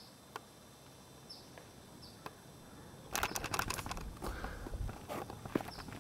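Quiet outdoor ambience with a few short, high bird chirps. About three seconds in, a louder stretch of crackling and rustling with many small clicks begins.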